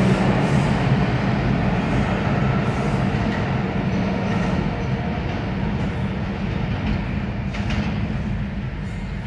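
R142 subway train pulling away down the tunnel, its running rumble fading steadily as it recedes.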